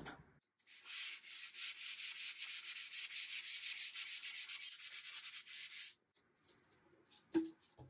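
Hand sanding with a sanding sponge, rubbed quickly back and forth over a dried, stained wooden panel, at about six strokes a second. It stops about six seconds in.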